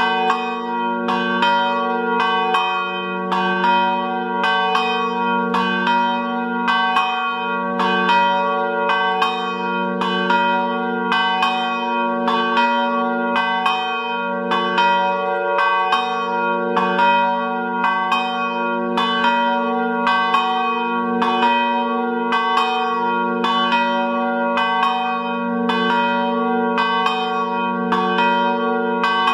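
Three swinging church bells in an open belfry ringing together in a steady, continuous peal, their strikes overlapping at a little more than one a second. Their ringing pattern sounds strange.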